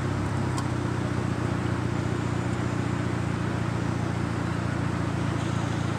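Steady low hum of vehicle engines with a haze of road noise.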